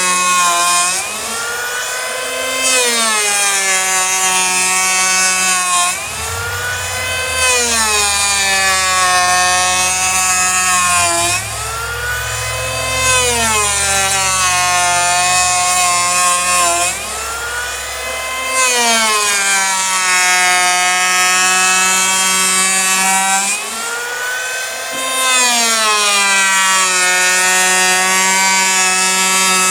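Electric hand-held power planer cutting a hickory slab in about five repeated passes. The motor runs steadily with a hissing cut, and between passes its pitch dips and climbs back.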